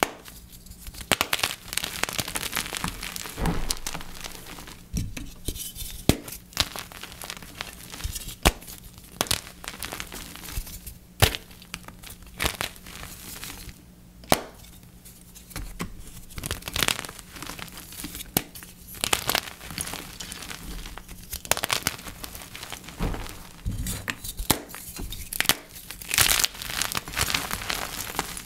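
Blocks of gym chalk being crushed, an irregular run of crisp crunches and sharp cracks with short pauses between them.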